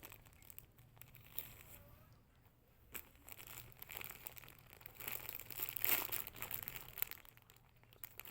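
Dry crinkling and rustling as chili peppers are picked out and handled, with a few sharp clicks.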